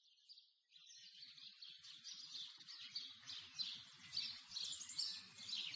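Faint birdsong fading in: many quick, high chirps that grow louder, over a faint low rumble.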